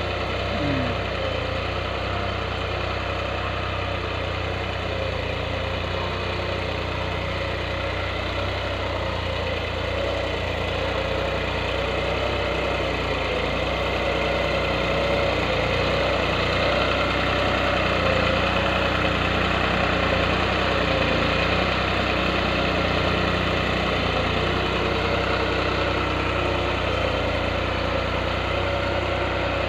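New Holland 3630 TX Super tractor's 50 hp three-cylinder diesel running steadily under load as it pulls a tine cultivator through the soil. It gets a little louder midway as the tractor turns close by.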